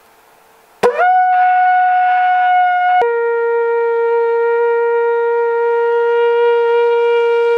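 Ram's horn shofar blown loudly. The blast starts suddenly about a second in on a higher held note, drops abruptly to a lower note around three seconds in, and that lower note is held long and steady.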